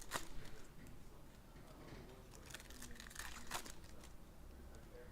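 Crinkling and tearing of trading card packaging being opened by hand, in two bursts: one at the start and one about two and a half to three and a half seconds in.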